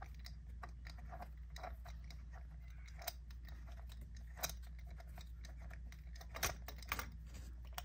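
Faint scattered clicks and taps of a spark plug socket and extension as an old spark plug is turned out of its plug well by hand, with a couple of louder clicks near the end, over a low steady hum.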